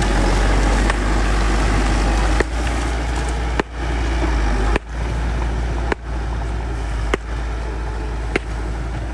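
Bulldozer's diesel engine running steadily with a deep low hum. From about two and a half seconds in, a sharp click recurs about every 1.2 seconds.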